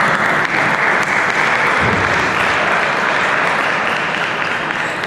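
Applause: steady hand-clapping that tapers off toward the end.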